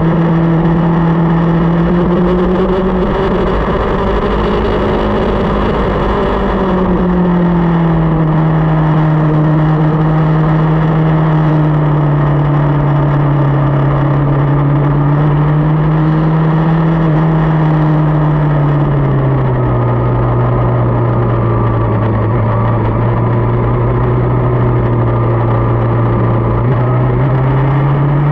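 Motorcycle engine running steadily while riding, its pitch easing up briefly, then settling lower for a long stretch before climbing again near the end, over a constant low rumble of wind on the microphone.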